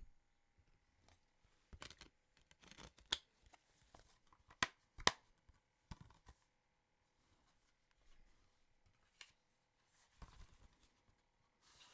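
Faint rustling and scattered clicks of a plastic disc case and its slipcover being handled, with a few sharper clicks in the middle.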